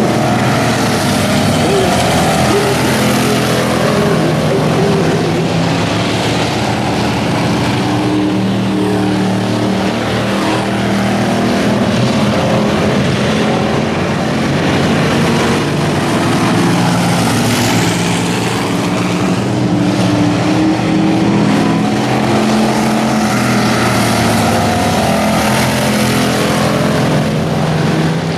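Several dirt-track race car engines running laps at once, their pitch rising and falling as the cars accelerate and ease off around the oval.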